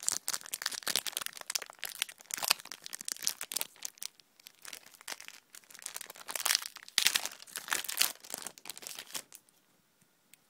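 Foil wrapper of a Pokémon TCG EX FireRed & LeafGreen booster pack crinkling and tearing as it is opened by hand, in quick irregular crackles that stop about nine seconds in.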